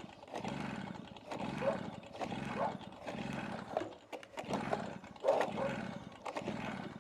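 Stihl BR380 backpack blower's two-stroke engine being pull-started over and over, the recoil starter cranking it in a steady run of about seven pulls roughly a second apart without it catching. The owner takes the engine to be flooded.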